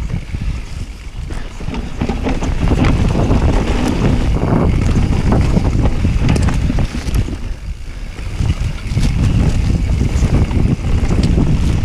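Mountain bike ridden fast down a dirt forest trail, heard from a camera mounted on the rider or bike: wind buffeting the microphone over tyre noise on dirt and dry leaves, with many short clicks and rattles from the bike over bumps. It eases briefly about two thirds of the way through, then picks up again.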